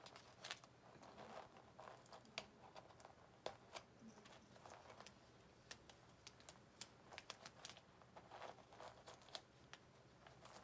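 Faint crackling and scattered ticks as a sheet of adhesive vinyl is peeled up off a sticky cutting mat.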